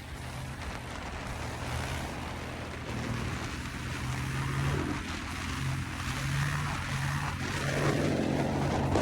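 A motor vehicle's engine running steadily under road and wind noise, growing louder toward the end.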